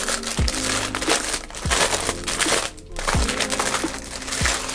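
Thin clear plastic wrapping crinkling and rustling as it is pulled by hand off a new binder and its plastic card sheets.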